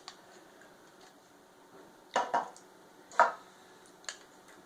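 A few short knocks and mouth sounds of drinking glasses being handled and water being sipped during a taste test: two close together about two seconds in, a sharper one a second later, and a fainter one near the end.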